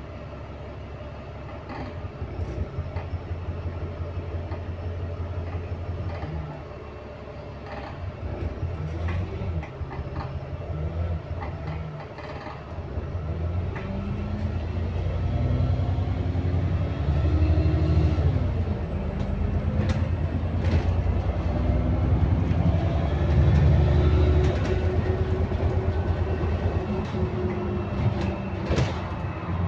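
Cabin sound of an ADL Enviro400 MMC double-decker bus with a Voith automatic gearbox pulling away and accelerating: the engine rumble grows louder, and a whine from the driveline rises in pitch through the gears from about twelve seconds in. Panels rattle now and then. Under acceleration the bus makes a groaning sound that the owner finds strange and new.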